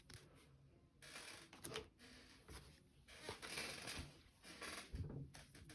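Faint rustling and sliding of trading cards being handled, in a few short stretches.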